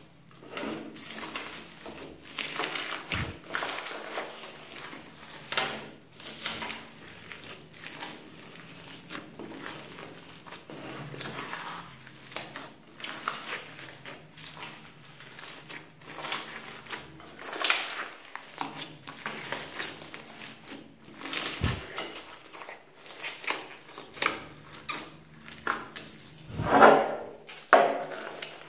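Slime packed with polystyrene foam beads being squeezed and kneaded by hand in a glass dish: irregular squelching with crackling and clicking of the beads, the loudest squelch near the end.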